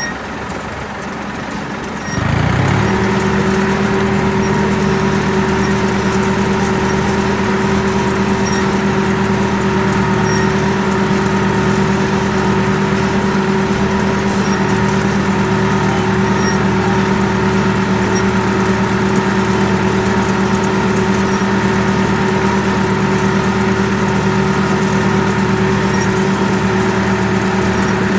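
Tractor engine pulling a hay wheel rake. About two seconds in it is throttled up, rising quickly in pitch and loudness, then it runs at a steady, loud working speed.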